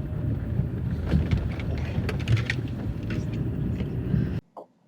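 Chevrolet Aveo's front suspension heard from under the bonnet while driving slowly over rough asphalt: a steady road rumble with a few sharp knocks. The knock comes from the new front strut top mount, which the owner blames on a sagging spring passing too much load to the mount. The sound cuts off suddenly near the end.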